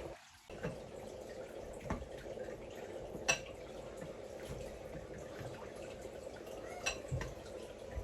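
Kitchen sounds: a steady watery hiss with a few light clinks of kitchenware, the sharpest about three seconds in and another near the end.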